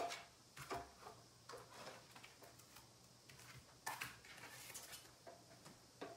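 Faint handling noise: a few scattered clicks and knocks, the strongest about four seconds in followed by a brief rustle, as a Stampin' Cut & Emboss die-cutting and embossing machine is fetched and set down on a craft table.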